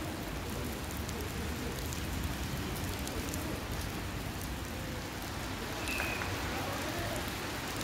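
Steady rain falling, an even hiss without a break.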